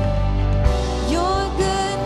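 Live worship band playing a slow song on keyboard, electric guitars, bass and drums, with a sung line that rises in pitch about a second in.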